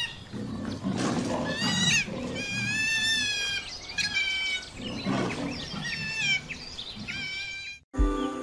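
Giant river otters calling in alarm: a run of loud, high, wavering screams over lower rough growling. These are the mobbing calls the otters aim at a predator, here a jaguar. The calls break off suddenly near the end.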